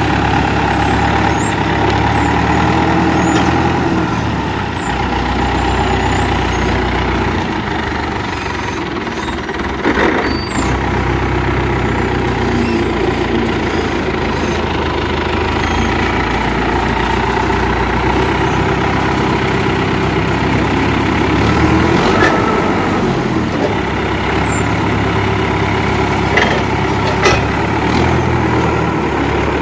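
Forklift engine running, its speed rising and falling as it drives and lifts, with a few metal knocks from the steel bio-toilet tank it is handling.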